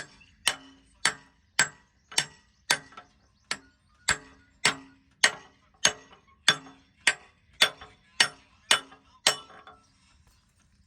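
Hammer blows on the steel bucket pin of a JCB 3DX backhoe during a bucket change, striking metal at a steady pace of about two blows a second with a brief ring after each. The blows stop shortly before the end.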